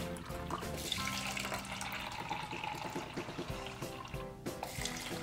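Water pouring from a plastic pitcher into plastic cups, under background music with a steady rhythm.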